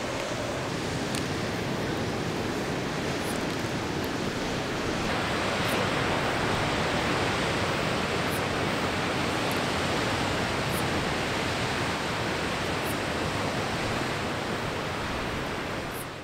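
Steady wash of ocean surf, growing a little louder about five seconds in.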